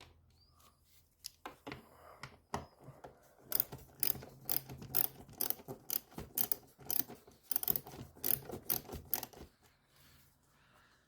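Socket ratchet clicking as it works an 8 mm bolt of the engine air filter housing loose: a few clicks at first, then a quick, even run of clicks, about three or four a second, for several seconds.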